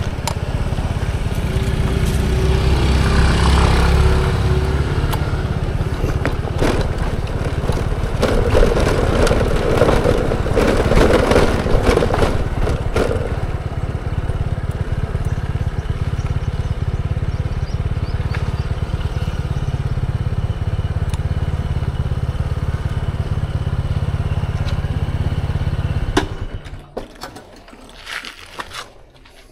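Rental motor scooter being ridden at low speed on rough concrete: a steady low rumble of engine, tyres and wind on the mic, grainiest in the middle stretch. About 26 seconds in it drops away sharply to a much quieter level.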